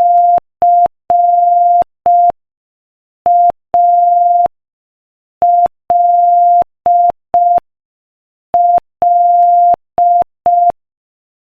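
Morse code sent as a single steady beep tone at 5 words per minute, in short dots and long dashes. It spells the letters C, A, L, L, with a pause between letters.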